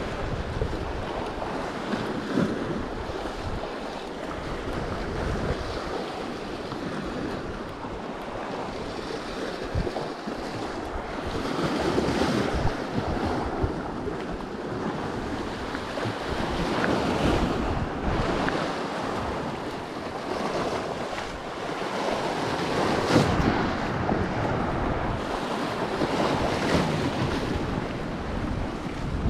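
Sea waves washing against the rocks below, swelling louder every few seconds, with wind buffeting the microphone.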